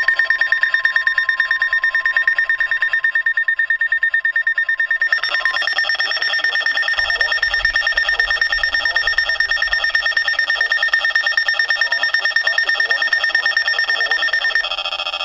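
Electronic emergency alert tone, rapidly pulsing and steady in pitch. A second steady tone under it stops about five seconds in as the alert's sound shifts, and the pattern changes again near the end.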